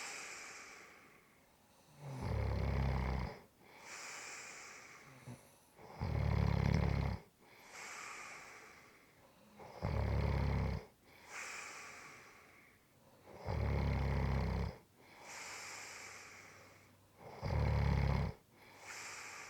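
A person snoring in a steady rhythm: five loud, low snores about four seconds apart, each lasting about a second and followed by a quieter breathy sound of a couple of seconds.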